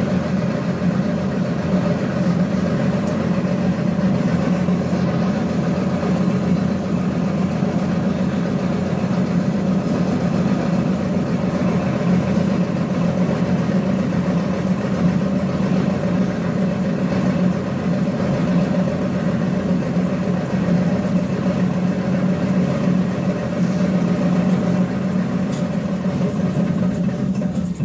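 Cabin of a ZiU-682GM1 trolleybus standing still: a steady, loud hum from its on-board auxiliary machinery, holding one pitch throughout, that cuts off abruptly at the very end.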